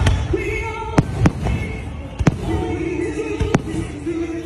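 Aerial firework shells bursting overhead in a series of sharp bangs, roughly one every second, with music playing underneath.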